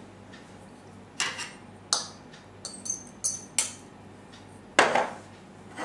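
A spoon clinking and scraping against a small bowl as chopped onion is tipped into a glass bowl of beaten egg: a string of separate light clinks at uneven spacing, one a little longer about five seconds in.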